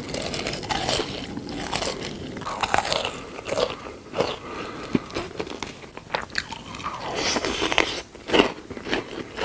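Close-up eating of tanghulu: repeated biting and crunching as the hard candied-sugar shell cracks between the teeth, with chewing in between.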